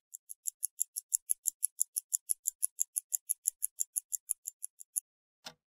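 Clock ticking, fast and even at about six ticks a second. It stops about five seconds in and is followed by a single click.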